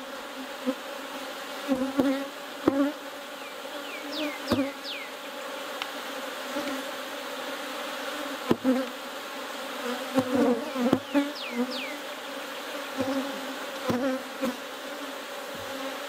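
Honey bees buzzing in a steady, wavering hum around an open hive. Scattered sharp wooden knocks and clicks come from the frames being slid and set back in the hive box.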